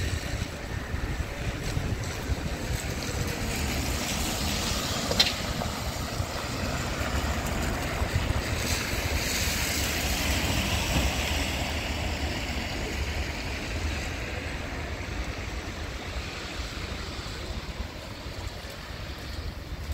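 Wet street ambience: car tyres hiss on wet asphalt, swelling and fading as a car passes about ten seconds in, over a steady low rumble of wind on the microphone. A single sharp click sounds about five seconds in.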